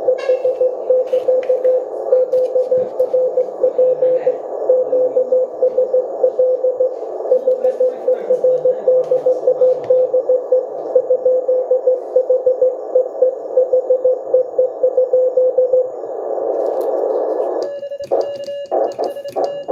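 Morse code received on an Elecraft K1 QRP transceiver: a keyed tone of about 500 Hz sending steadily over band hiss for about sixteen seconds, then hiss alone for a moment. Near the end the local operator starts sending: a slightly higher sidetone keyed in Morse, with the Morse key's contacts clicking.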